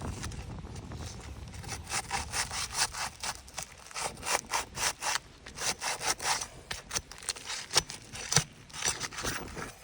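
A tool scraping back and forth under an asphalt shingle tab in quick repeated strokes, starting about two seconds in, breaking the shingle's adhesive seal strip so the nails can be reached.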